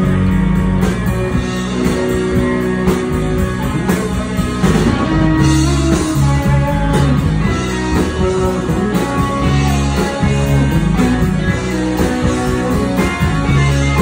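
Live rock band playing an instrumental passage: electric guitars and bass over a steady drum beat, with no singing.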